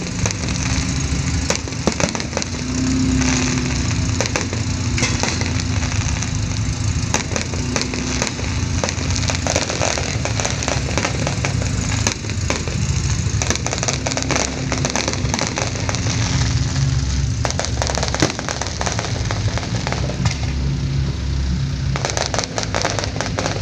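Fireworks crackling and popping in quick, repeated cracks throughout, over music with a steady bass line.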